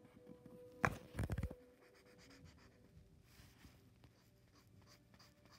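A marker tip drawing strokes on paper, faint and quickly repeated, preceded about a second in by a few sharp clicks.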